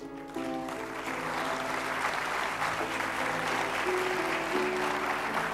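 Audience applause breaks out about half a second in and goes on steadily over sustained instrumental music closing the play.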